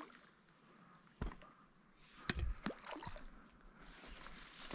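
Water splashing and sloshing lightly, with two sharp knocks about one and two seconds in.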